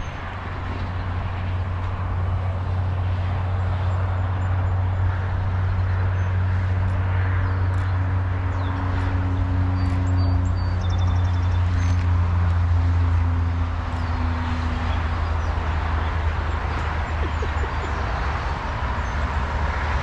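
A passing train's low rumble and diesel engine drone, swelling to its loudest about thirteen seconds in and then easing off. Birds chirp faintly above it.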